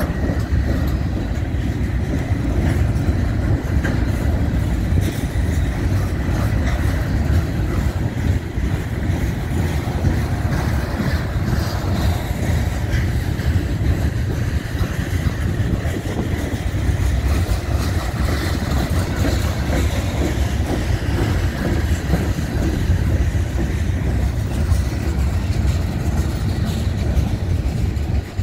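Freight cars of a passing manifest train, centerbeam flatcars loaded with lumber, rolling by at close range: a steady low rumble of wheels on rail with scattered clicks.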